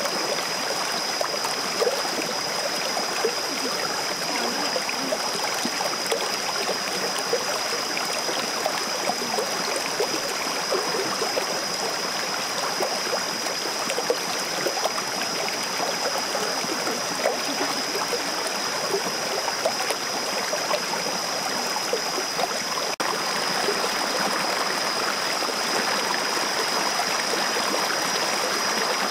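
Shallow rocky stream running and babbling steadily, with many small gurgles, and a thin steady high-pitched tone alongside. About three quarters of the way through, the water briefly dips and then comes back a little louder.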